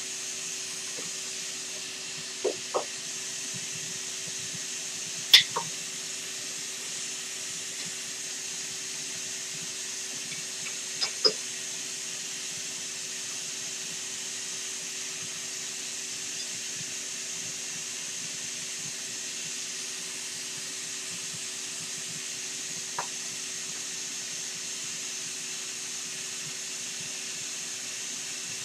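Vacuum for a CNC router's vacuum table running steadily with a low hum. A few sharp clicks and clanks come from hands and a wrench working on the stopped spindle's dust shoe and collet during a bit change; the loudest is about five seconds in.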